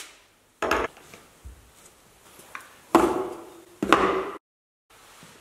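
Brake pads and a small parts box being set down on a wooden tabletop: three hard knocks, about half a second in, at three seconds and just before four, each trailing off briefly. The sound then cuts out to silence for a moment.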